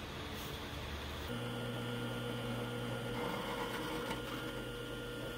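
Drill press motor running with a steady hum that changes pitch about a second in. From about three seconds in, the bit cuts into a steel tab, adding a rough scraping noise over the hum.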